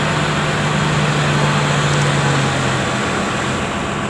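Heavy diesel machinery running at a work site: a steady low engine hum under a broad rushing noise, the hum dropping away about three seconds in.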